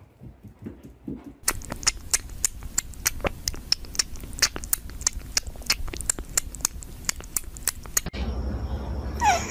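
Rapid, irregular sharp clicks and taps for several seconds, then a cat meows once near the end, falling in pitch.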